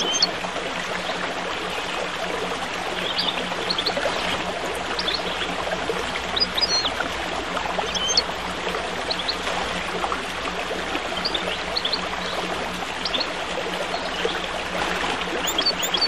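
Stream water babbling steadily, with small birds giving short high chirps scattered throughout and a steady low hum underneath.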